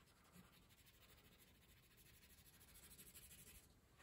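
Faint scratching of a wax crayon scribbled back and forth on paper, swelling a little about three seconds in.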